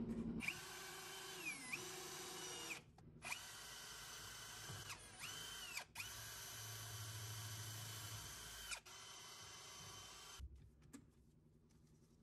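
Cordless drill running in three long bursts with short pauses between them as a thin bit drills into wood. Its motor whine dips in pitch as the bit bites. Near the end it runs more quietly, stops, and a few handling clicks follow.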